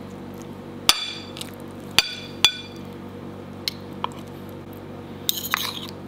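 Metal spoon clinking against a dish: three sharp ringing clinks, then a quick flurry of lighter clicks and scraping near the end, as the steamed fish flesh is worked off the skin.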